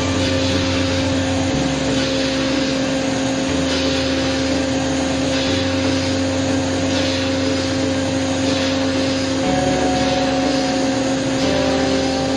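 CNC milling machine cutting aluminium with a gold-coated end mill: the spindle runs with a steady tone over a dense hiss of cutting noise.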